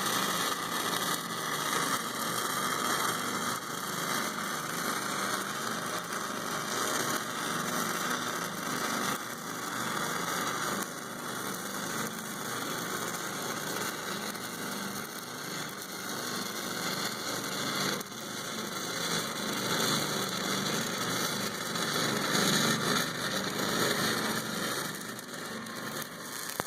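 Stick-welding arc burning a 6010 electrode, running a root pass uphill on 8-inch pipe: a steady, harsh crackling hiss that dips slightly in level now and then.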